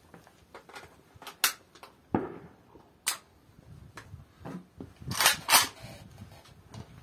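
Several sharp metallic clacks of an AK-101 5.56 mm rifle being handled, the loudest a quick pair about five seconds in.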